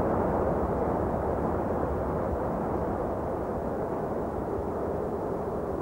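Steady low rumble of Mount Etna's crater venting ash and gas, with no separate blasts.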